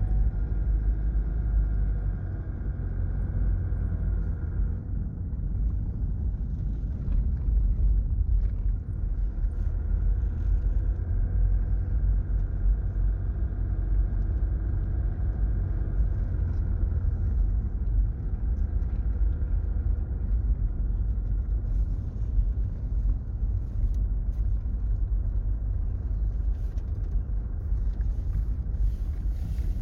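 Steady low rumble of a 4x4's engine and tyres while driving, heard from inside the cabin.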